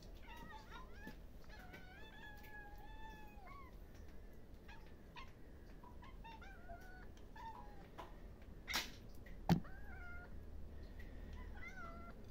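Kittens meowing repeatedly at feeding time, with one long drawn-out meow about two seconds in and a string of short meows after it. Two sharp knocks come in quick succession past the middle.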